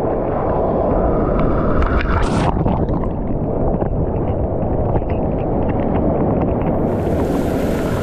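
Churning, rushing whitewater of a broken wave right at the microphone, muffled at first and turning brighter and hissier about seven seconds in.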